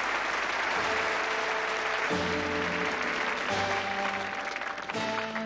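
Audience applauding over music of long held chords that change about every second and a half; the applause dies away near the end while the music carries on.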